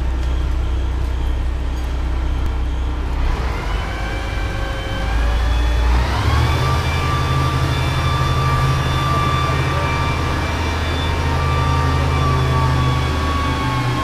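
Mobile crane's engine running under load as it hoists a steel beam. It speeds up between about three and six seconds in, then holds at a higher, steady pitch.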